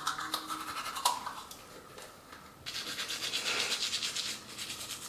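Electric toothbrush running with a fine, even buzz. It fades for about a second near the middle, then comes back louder.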